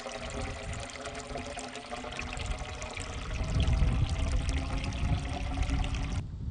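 Water from a garden hose pouring into a 3-inch PVC pipe, filling it, with a steady tone sounding over the splashing. A low rumble joins about halfway in, and the sound cuts off abruptly near the end.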